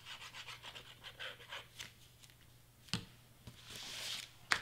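Craft glue squeezed from a small plastic bottle onto cardstock with a faint crackling, then a hand smoothing the paper down: a few light clicks, a soft swish, and a sharp click near the end.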